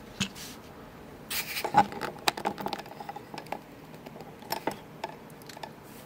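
Scattered light clicks and taps of a brass oval lock cylinder, its parts and a pin tray being handled and set down on a desk mat, the loudest knock a little under two seconds in.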